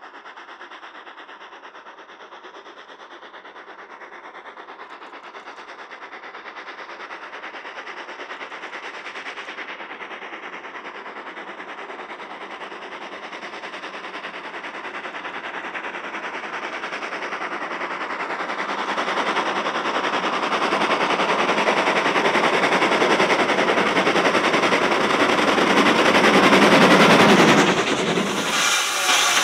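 LBSCR Terrier 0-6-0T steam tank locomotive working a train towards the listener, its rapid exhaust beats growing steadily louder as it approaches. Near the end the locomotive passes close by and its carriages roll past.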